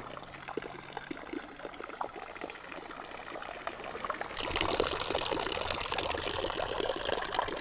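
Water from the bull-statue fountain pouring and splashing into its basin, a continuous splashing that grows louder about four and a half seconds in.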